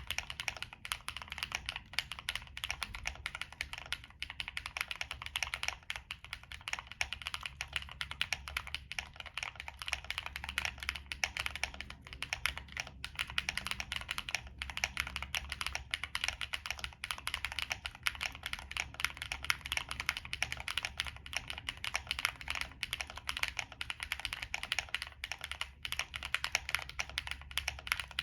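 Continuous fast typing on a Monsgeek M1 mechanical keyboard with Frankenswitches (Cherry MX Black housings and metal long-pole stems), a POM plate and PBT Cherry-profile keycaps. The keystrokes are a dense run of clicks with no pause.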